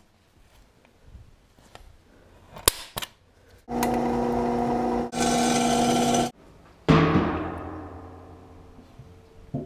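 Drill press motor running and drilling into a metal plate, a steady whine for about two and a half seconds that dips briefly and then cuts off suddenly. About half a second later comes a single metallic clang that rings and dies away over about two seconds, with a few light knocks earlier on.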